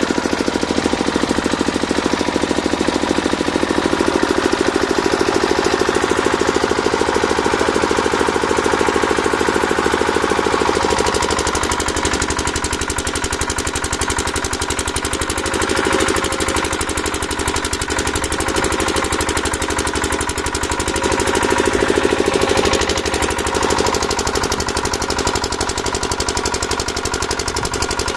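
A machine running steadily with a fast, even pulsing beat, its tone shifting a few times along the way.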